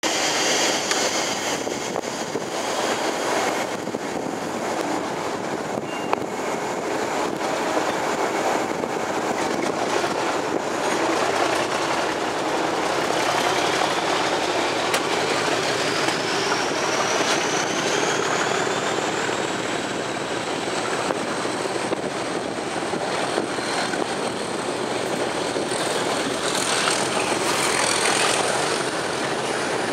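Class 37 diesel locomotive 37425's English Electric V12 engine working hard as it pulls the train away, heard from the coach behind: a loud, steady engine thrash. A thin whine climbs in pitch from about twelve to twenty seconds in as the engine builds power, then holds high.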